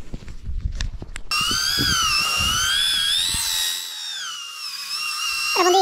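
Fishing reel whining as line is wound in, a high mechanical whine whose pitch wavers up and down, starting abruptly about a second in; before it, a few light knocks of handling.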